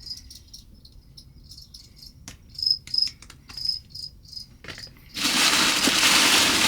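A cricket chirping in short, high, repeated chirps, with a few sharp handling clicks. About five seconds in, a loud, steady rustle of packaging starts and drowns out the cricket.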